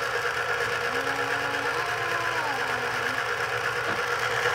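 Electric citrus juicer running, its motor whirring steadily as an orange half is pressed down onto the spinning reamer.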